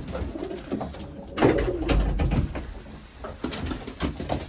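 Racing pigeons cooing, low and pulsing, loudest about a second and a half in, with scattered light clicks.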